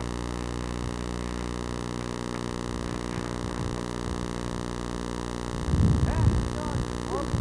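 Steady electrical hum of a home-video recording with faint distant voices, and a brief low rumble on the microphone about six seconds in.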